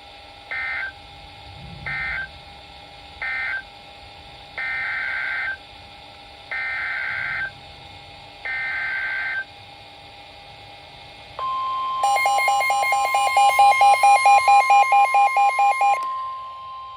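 Emergency Alert System SAME data bursts from a NOAA Weather Radio broadcast: three short screeching bursts that end the previous warning, then three longer bursts that carry the header of the next alert. About 11 seconds in, the steady 1050 Hz warning alarm tone begins. From about 12 to 16 seconds, a rapid electronic beeping plays over the tone.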